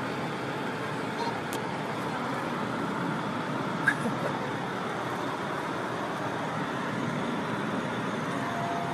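Steady background noise of a shop interior, with no clear voice or machine standing out. A short, sharp click about four seconds in.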